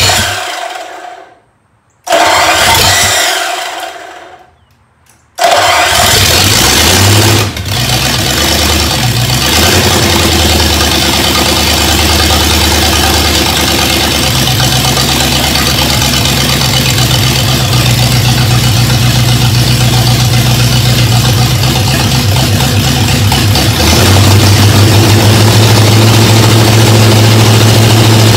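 Freshly rebuilt Ford flathead V8, on its first start after the rebuild, catches briefly twice and dies away each time, then fires about five seconds in and keeps running steadily. About twenty-four seconds in it picks up slightly and runs a little louder.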